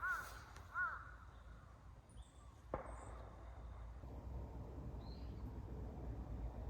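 A bird calling twice near the start, in short rising-and-falling notes. A single sharp click follows a couple of seconds later, then a faint steady low hum of outdoor background noise.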